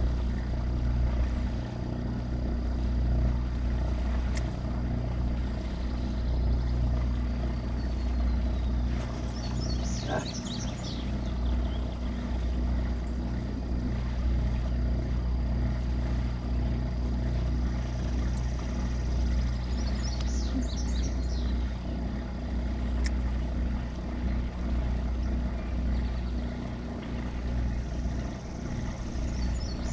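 Steady low hum of a bow-mounted electric trolling motor holding the boat. A bird's short trilled song repeats about every ten seconds.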